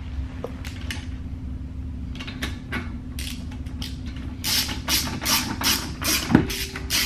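Hand ratchet and socket clicking as lug nuts are snugged up on a car wheel: a few scattered clicks at first, then a regular run of ratchet strokes, about three a second, from about four and a half seconds in. A single sharp knock stands out about six seconds in.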